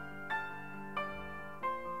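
Gentle background piano music: three single notes struck over held lower notes.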